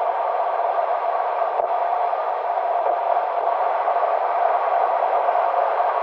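Steady road and tyre noise heard inside a car driving on an expressway, an even rushing sound with no changes.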